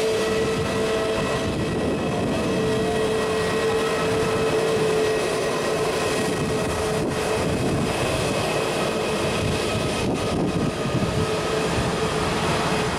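Airbus A320neo's CFM LEAP-1A turbofan engines running at taxi power as the airliner rolls past: a steady jet whine with a held tone over a broad rush of engine noise.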